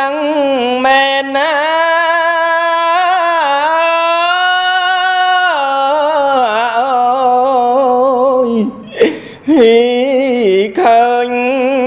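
A Buddhist monk chanting Khmer smot as a single unaccompanied male voice: long held, wavering notes that step down in pitch about halfway through, with a short breath break about nine seconds in before the chant resumes.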